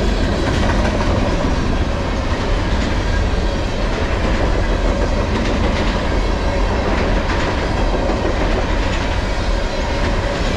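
Freight train rolling past: a steady rumble of steel wheels on rail from flatcars carrying empty garbage containers, with a clickety-clack of wheels over rail joints.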